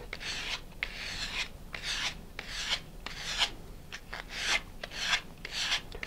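Sandpaper on a sanding block rasping against the edge of a small balsa rocket fin in quick back-and-forth strokes, about three a second, rounding the fin's leading and trailing edges.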